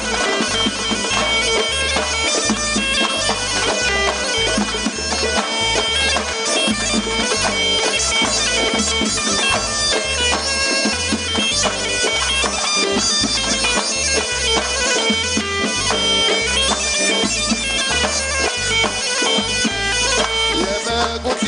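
Mezoued, the Tunisian bagpipe, playing a continuous, ornamented folk melody over a steady, driving frame-drum beat.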